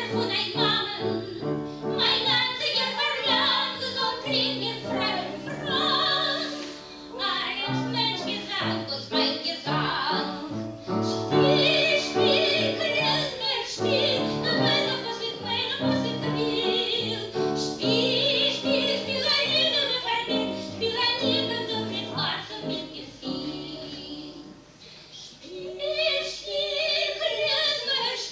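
Live performance of a Yiddish song: singing with instrumental accompaniment. The music dips briefly about three-quarters of the way through, then resumes.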